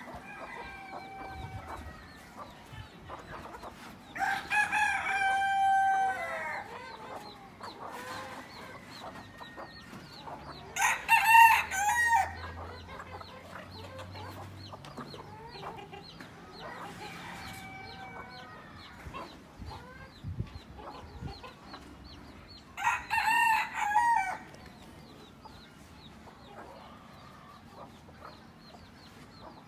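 Domestic chickens in a yard: a rooster crows three times, about four, eleven and twenty-three seconds in, the middle crow the loudest, while hens cluck softly in between.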